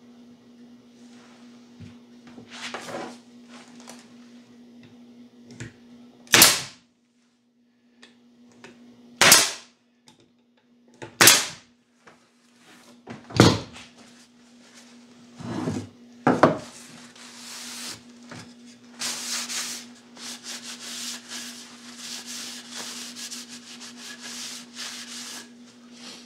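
Pneumatic stapler firing four times, about two seconds apart, driving staples into the wooden jig, followed by two lighter knocks. From about two-thirds of the way through, a paper towel rubs and wipes wood glue off the wood.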